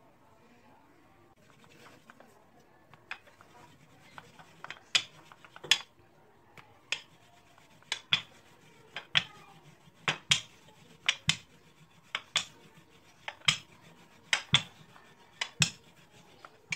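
Wooden rolling pin rolling out a small round of dough on a stone worktop, with sharp clacks of the pin against the counter roughly once or twice a second. The clacks begin a few seconds in, after a quieter stretch of hands pressing the floured dough.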